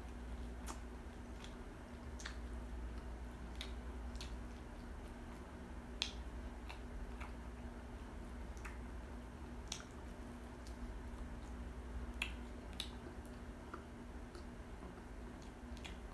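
Close-miked eating of crispy fried chicken: irregular sharp clicks and crunches of chewing and lip smacking, over a low steady hum.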